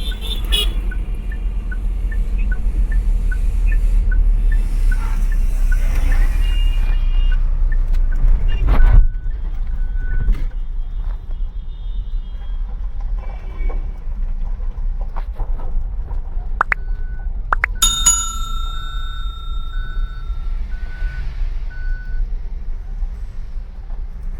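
Diesel engine running with a steady low rumble, while a vehicle's electronic warning chime beeps about three times a second in stretches; a loud thump comes about nine seconds in, and the rumble is quieter after it.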